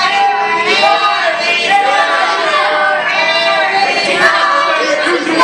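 Ringside crowd, many of them children, shouting and chanting in many overlapping, drawn-out voices.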